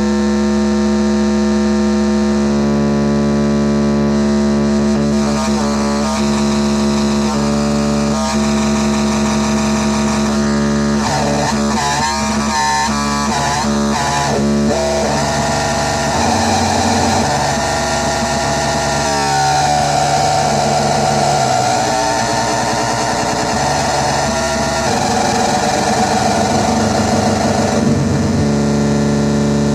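Dirty Drone [anarchy edition] synth, three interacting triangle-wave oscillators, sounding a steady, buzzing, multi-tone drone. Its pitches shift in steps several times, with a wobbling, warbling stretch near the middle.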